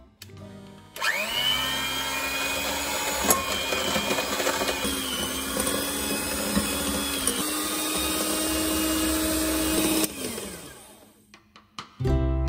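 Electric hand mixer creaming butter and sugar in a glass bowl: a steady motor whine that steps up in pitch twice, then is switched off and winds down.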